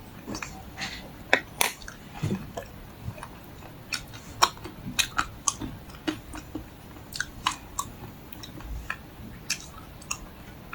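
Close-up chewing and biting of a crunchy chocolate-coated ice cream bar, with irregular sharp crackles as the hard shell breaks between the teeth.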